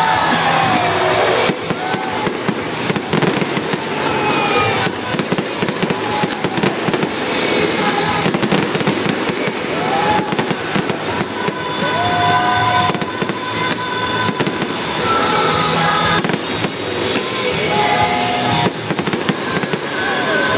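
Aerial fireworks display: shells bursting overhead amid a dense, continuous crackle of many small rapid cracks.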